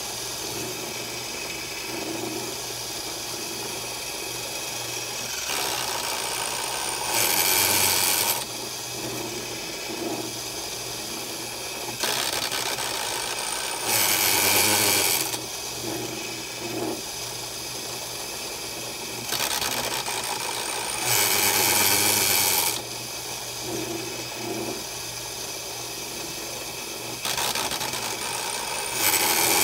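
Wen 8-inch benchtop drill press running with a Tapmatic tapping attachment, tapping four holes one after another. Over the steady run of the motor, the sound grows louder and brighter four times, for about a second and a half each, roughly seven seconds apart, once for each hole.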